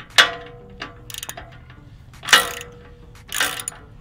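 Ratchet wrench clicking in a short quick run and metal tools clanking three times, each clank leaving a brief ringing note, as bolts are tightened back onto a motorcycle exhaust.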